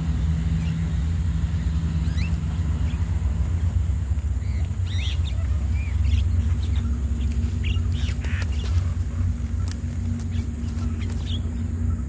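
A steady low rumble under short, scattered chirps and squawks from a flock of Javan mynas (jalak kebo) feeding on the ground. The calls come thickest from about four seconds in.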